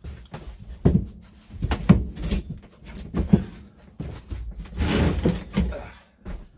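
A camper's wooden pull-out couch base being pushed back in and its cushions shifted: a series of knocks and thumps, with a longer rustling slide about five seconds in.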